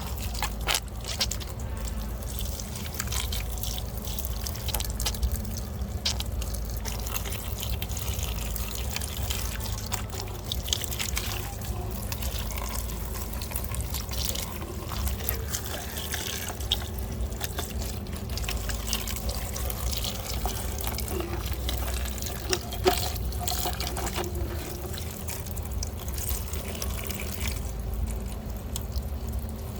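Water running and splashing as muddy plastic toy vehicles are washed, with frequent small clicks and knocks from the toys being handled.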